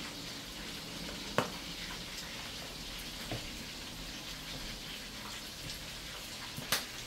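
Chicken frying in a pan on the stove: a steady sizzle, with a few faint clicks and taps over it.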